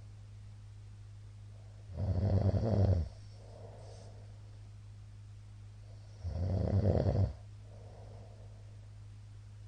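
A man snoring in his sleep: two loud snores about four seconds apart, each lasting about a second, with softer breaths out between them, over a steady low hum.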